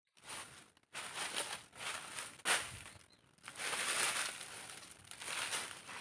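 Dry banana leaves and leaf sheaths rustling and crunching, with footsteps on dry leaf litter, in uneven bursts. A steady high hiss runs underneath.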